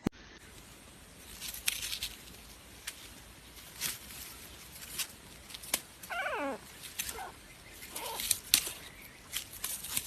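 A pet animal gives one falling, wavering cry about six seconds in, followed by two fainter calls. Light clicks and taps sound on and off throughout.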